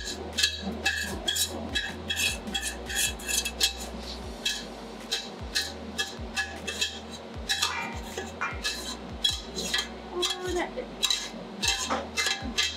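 A metal spoon scraping and clanking against a stainless steel pot as cooked ground meat is scraped out into a metal colander to drain, with repeated sharp clinks a few times a second.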